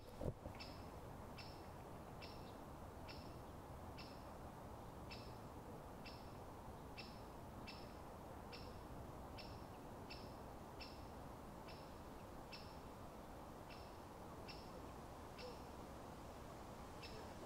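A small bird repeats a short, single-pitched call note, faintly, about twice a second at slightly uneven intervals. Under it runs a steady low rumble of distant road traffic.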